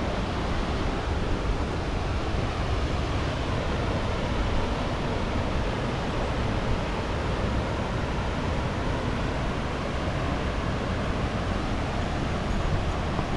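A large waterfall's water rushing and tumbling down, heard as a steady, even rush with no breaks.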